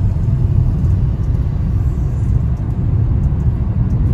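Steady low rumble of a car driving along a highway, road and engine noise heard from inside the cabin.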